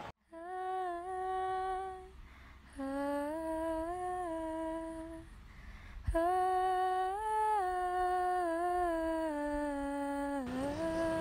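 A wordless hummed melody in long held notes that step up and down in pitch, sung in three or four phrases with short breaths between them.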